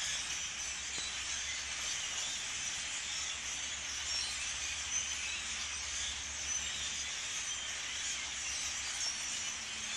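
A large flock of European starlings chattering all at once: a steady, dense wash of many overlapping high calls with no pauses.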